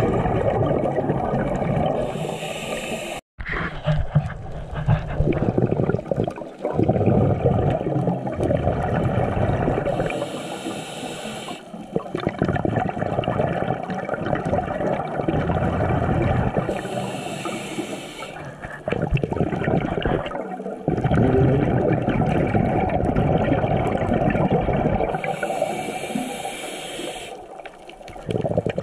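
Underwater scuba breathing: the hiss of an inhalation through a regulator four times, about every seven seconds, with the rumble and gurgle of exhaled bubbles in between. The sound drops out for an instant about three seconds in.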